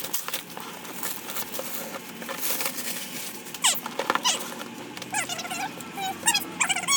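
Rustling and clicking of packaging being opened and handled, with a run of short high-pitched squeaks in the second half.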